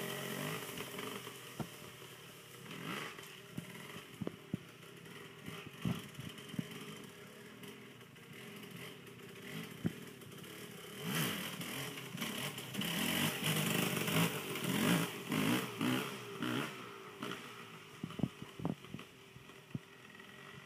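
KTM dirt bike's engine running at a distance, fading at first, then revving up louder for several seconds about halfway through before fading again. Sharp clicks are scattered throughout.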